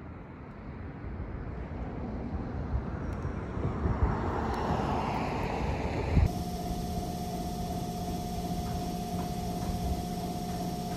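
A passing vehicle swells to a peak about four to six seconds in, its pitch falling slightly. The sound then cuts to a steady mechanical hum with a clear held tone.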